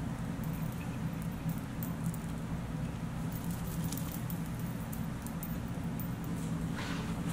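Faint rustling and light scratching of hair being combed and handled, over a steady low hum.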